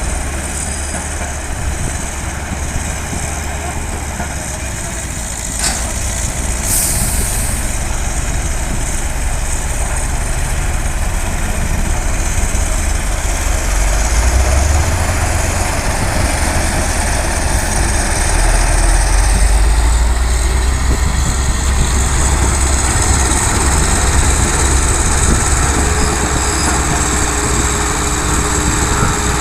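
Heavy diesel construction machinery running: a steady low engine hum that swells louder a few times, with one sharp click a little over five seconds in.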